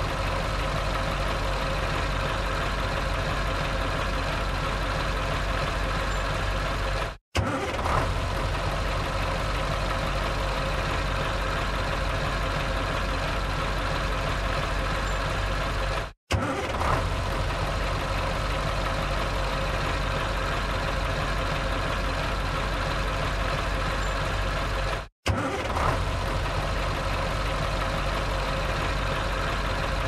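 Truck engine idling steadily. It cuts out three times, about every nine seconds, and each time it starts again with a brief surge before settling back to idle.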